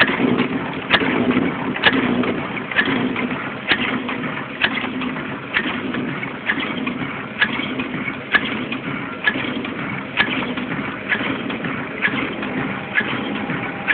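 A-95T wet-tissue machine running in its regular cycle, with a sharp click a little under once a second over a steady low hum.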